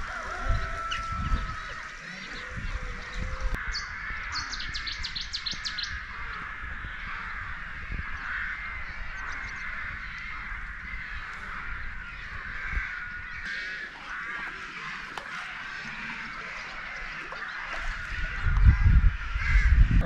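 A chorus of birds calling and chirping, with a quick rattling run of notes about four seconds in. Wind buffets the microphone, most strongly near the end.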